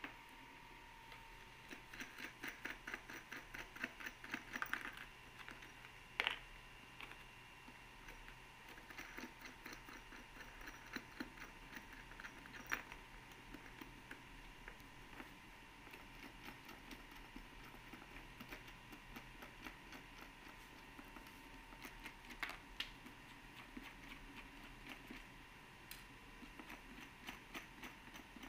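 Faint runs of light clicking and a few sharper knocks as a plastic tricycle seat and its bolts and bracket are handled and fitted by hand.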